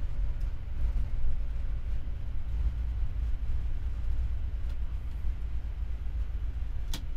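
Steady low rumble in the cockpit of a Boeing 787-9 rolling out on the runway after landing, decelerating with reverse thrust selected. A sharp click about seven seconds in.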